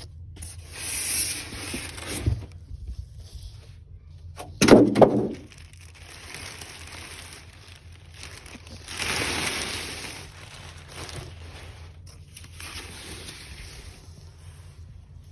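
Cardboard packaging being handled while a new washing machine is unpacked: several long scraping, rubbing strokes, with a louder, heavier scrape about five seconds in.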